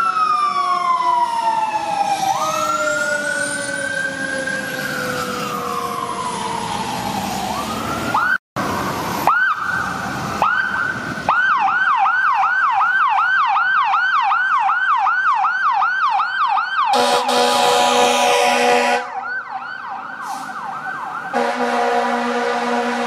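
Fire engine sirens sounding a slow rising and falling wail, then, after a break, a fast yelp of about three whoops a second. Two long blasts of the fire engine's horn sound over the yelp near the end.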